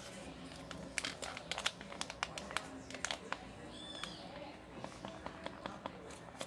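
Homemade slime being stirred in a bowl: faint, irregular sticky clicks and crackles.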